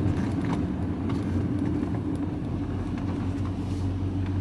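Steady engine hum and road noise of a vehicle being driven, heard from inside the cab.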